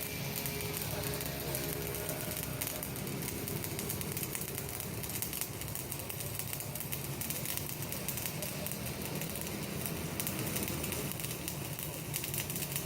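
Electric welding arc crackling and sputtering steadily.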